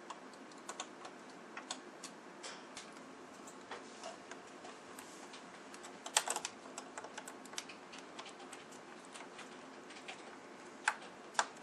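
Light plastic clicks and snaps as the screen bezel of an HP G71 laptop is pried loose with a guitar pick, its snap-fit clips letting go. The clicks are scattered, with a cluster about six seconds in and two sharper snaps near the end.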